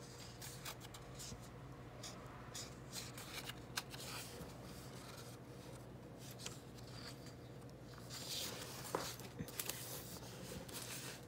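Hardcover picture book being handled and a page turned, a faint papery rustle with small taps that is busiest about eight seconds in, over a low steady room hum.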